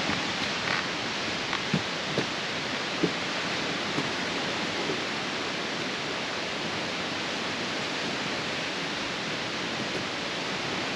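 A steady, even rushing noise that holds at the same level throughout, with a few faint taps in the first half.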